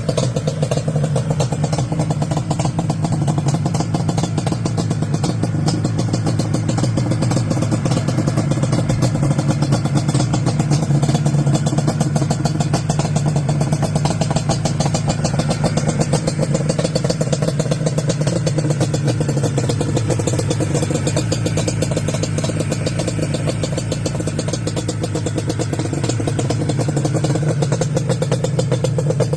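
Yamaha Banshee's two-stroke parallel-twin engine running steadily, with a rapid even firing beat and only slight rises and falls in pitch.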